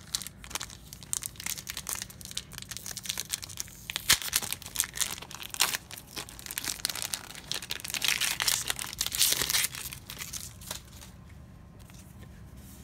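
A Cardfight!! Vanguard booster pack wrapper being torn open and crinkled by hand, in crackling bursts that are loudest about 4 seconds in and again around 8 to 10 seconds, then dying down to quieter handling.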